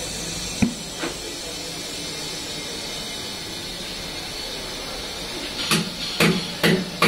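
Compressed air hissing steadily from an air-hose chuck held on a car tyre's valve as the tyre is inflated. A few sharp knocks come about half a second and a second in, and a quick run of four louder ones near the end.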